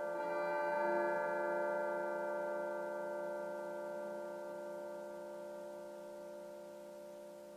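Soft instrumental music holding one sustained chord, which swells again about a second in and then slowly fades away.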